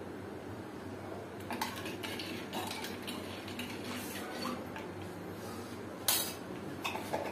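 Spoon clinking and scraping in a clay pot as the spiced pani puri water is stirred, with a single sharper knock about six seconds in.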